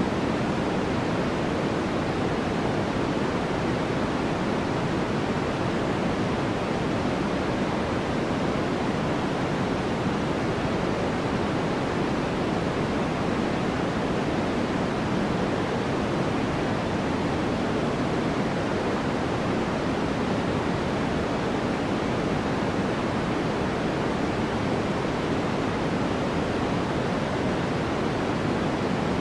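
Continuous synthetic white noise for sleep: a steady, even hiss that never changes. It is weighted toward the lower pitches, so it sounds deeper and softer than a bright, flat hiss.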